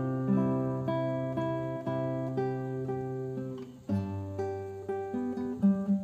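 Background music: an acoustic guitar plucking a run of notes and chords, with a brief pause before a new chord a little past the middle.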